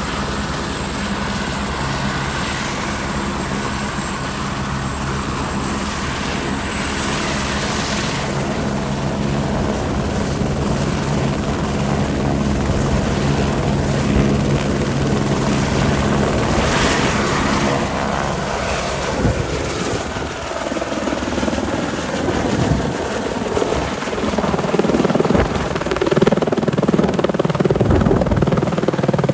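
Airbus AS350 AStar single-engine turbine helicopter running on the pad with a steady turbine and rotor hum. About two-thirds of the way in it lifts off, and the sound turns into a louder, pulsing rotor noise that grows as it climbs overhead.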